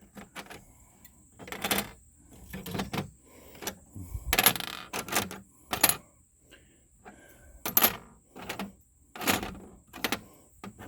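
Salvaged computer processors being handled, clinking and clattering against each other and a hard surface in irregular bursts, with a longer rattle about four and a half seconds in.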